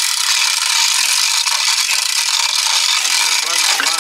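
Loud, steady high-pitched buzzing hiss, with men's voices faint beneath it.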